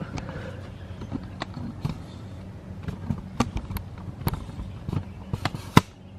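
Irregular clicks and knocks from handling equipment, the loudest near the end, over a steady low electrical hum.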